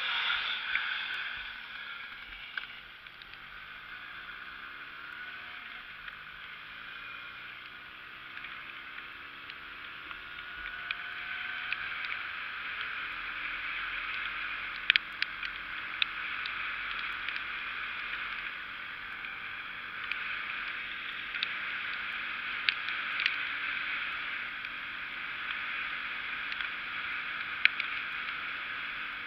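Hercules MX1 moped riding on a wet road: a steady hiss of wind and tyres on wet tarmac dominates, with the two-stroke engine faint beneath it, its pitch climbing in steps as it accelerates through the gears over the first ten seconds, then holding steady at cruising speed. A few sharp clicks stand out now and then.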